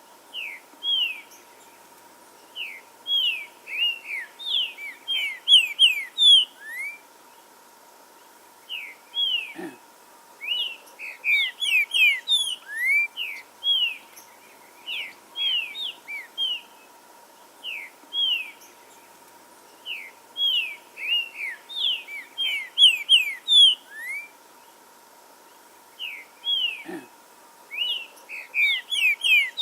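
Green-winged saltator (trinca-ferro) singing: bouts of quick, clear whistled notes, most sliding downward, with short pauses between bouts.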